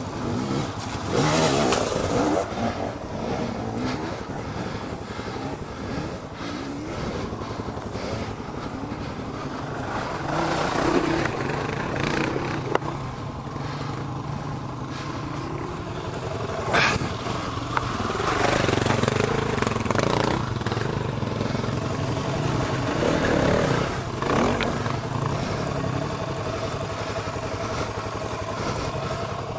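Dual-sport motorcycle engine running, with repeated surges of revving, and one sharp knock about seventeen seconds in.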